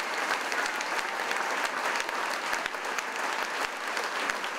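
Large audience applauding: dense, steady clapping.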